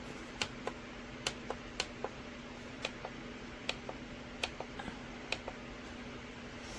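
Scattered light clicks and taps, about a dozen at irregular intervals, over a steady low hum.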